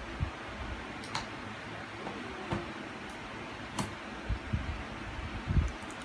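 Hands handling a cardboard lightstick box: a scattering of light knocks and clicks, two of them sharp, and a heavier low thump near the end, over a steady background hum.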